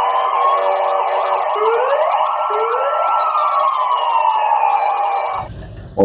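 Several police car sirens wailing at once, their rising and falling tones overlapping; they fade and stop about five and a half seconds in.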